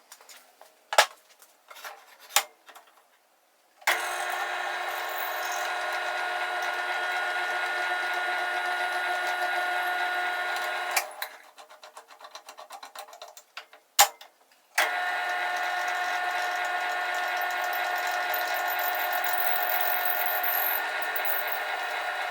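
A power tool's electric motor runs at a steady pitch twice, each time for about seven seconds, with a pause between. Clicks and knocks of handling come before the first run and in the pause.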